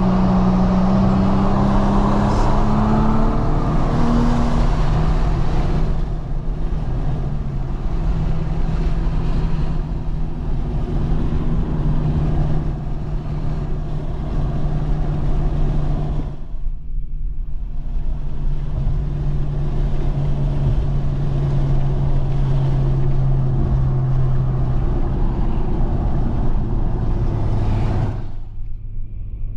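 Infiniti Q50 3.0t's twin-turbo V6 and road noise heard inside the cabin while cruising at highway speed. The engine rises in pitch over the first few seconds and eases off about six seconds in, then settles into a steady drone.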